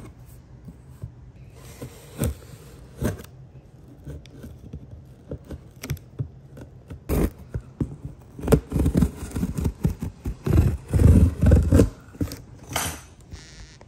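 Scissors cutting and scraping through packing tape on a cardboard box, with scattered clicks. From about halfway, louder knocks and rustling as the cardboard box is handled and opened.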